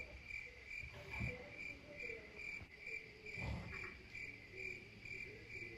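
Crickets chirping: a faint, evenly repeating high chirp a few times a second, with a softer wavering call lower down and a couple of soft low bumps.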